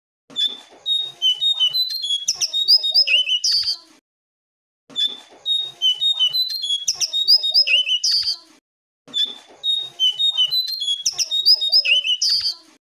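Jongkangan (cingcoang coklat) song: a rapid, varied phrase of high whistled notes, repeated the same way three times, each about three and a half seconds long with a short pause between. It is a looped lure recording (pancingan), played to set a silent caged jongkangan singing.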